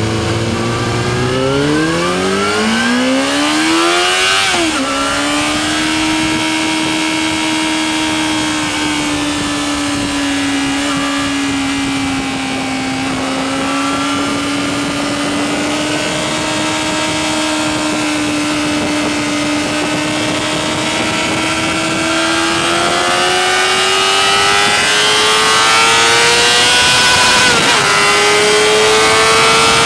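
Yamaha R6 sport bike's inline-four engine, heard from onboard, accelerating through the gears. Its pitch climbs for about four seconds and drops at an upshift. It then holds a long steady high note, climbs again and drops at a second upshift near the end.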